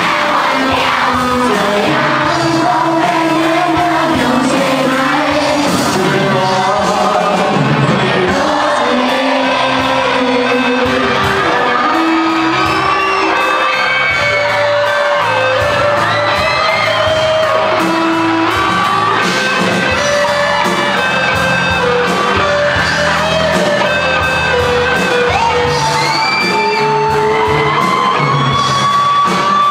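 Live rock band playing: a male singer over electric guitar, bass guitar and a drum kit.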